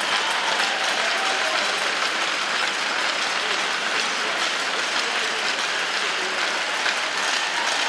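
Arena crowd applauding steadily.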